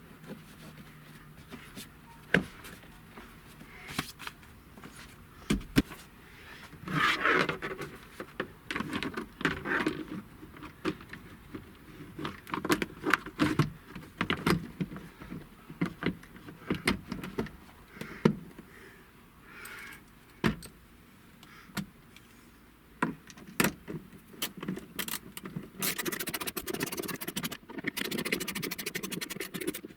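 Hand tools and plastic dash trim parts being handled and fitted: scattered clicks, knocks and short rattles, then a run of rapid, even clicking for the last few seconds.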